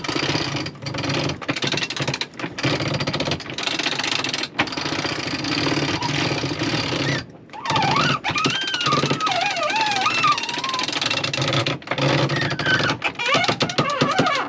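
A sailboat's cockpit winch is cranked with a winch handle, its ratchet pawls clicking rapidly with brief breaks between strokes. A wavering high squeal runs for a few seconds after a short pause about halfway through.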